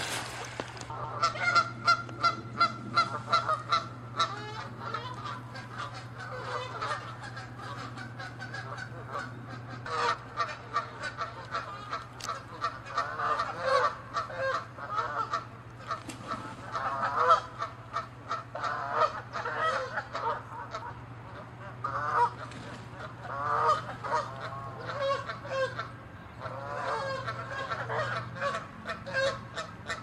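Canada geese honking in rapid runs of loud, short honks, in clusters with brief lulls, as agitated geese chase one another in a territorial squabble. A steady low hum runs underneath.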